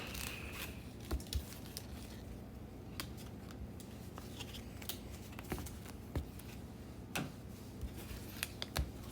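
Faint rustling and scattered light clicks of trading cards being handled and sorted into stacks, over a steady low hum.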